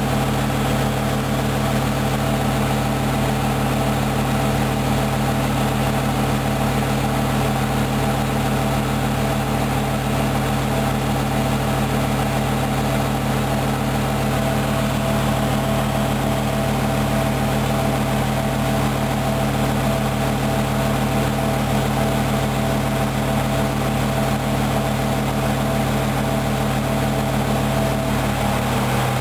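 Hoover Dynamic Wash 10124 DP washing machine in its final spin, drum turning at high speed with a steady hum made of several held tones.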